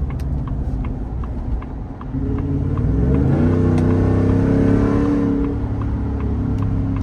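Ford F-150 Tremor's 5.0 Coyote V8 running through open exhaust cutouts, accelerating hard about two seconds in: the note climbs in pitch and grows louder, then holds steadier near the end.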